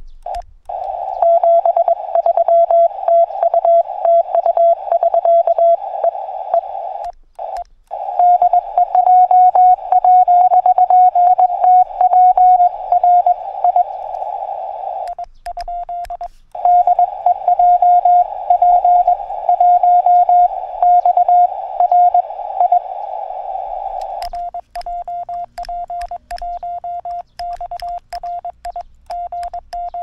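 Morse code (CW) from a Yaesu FT-818ND transceiver: a single tone of about 700 Hz keyed in quick dits and dahs over a hiss of band noise. About 24 seconds in, the hiss drops away and the keyed tone goes on clean and a little quieter, with a faint click at each element.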